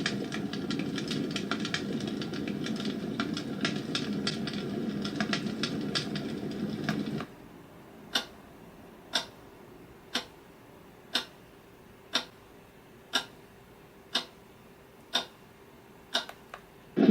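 A white noise machine's built-in sound, playing through its small speaker: a steady noise full of irregular crackling clicks. About seven seconds in, it switches to a clock-ticking sound, with about nine ticks at one per second.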